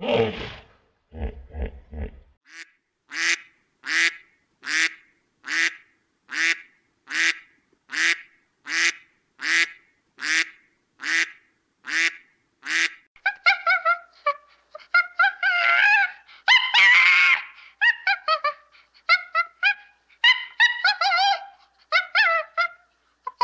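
Waterfowl honking: a steady run of about a dozen loud, evenly spaced honks a little under a second apart, then several birds calling over one another with rising and falling calls. A few short, low grunts are heard in the first two seconds.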